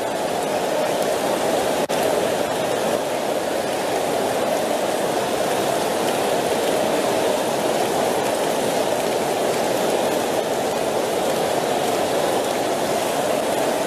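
A large congregation praying aloud all at once, many voices blending into one steady crowd sound with no single voice standing out.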